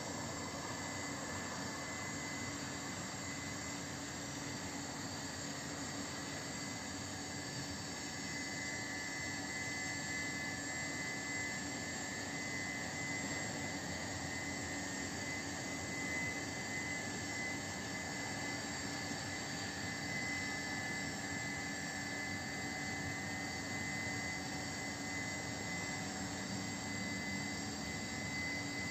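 Steady, unbroken hum of a city at night: an even roar of distant traffic and machinery, with a faint high whine held throughout.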